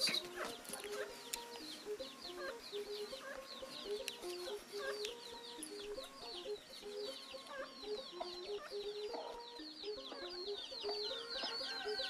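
Domestic chickens clucking in short, low notes, over a continuous run of fast, high chirps, several a second.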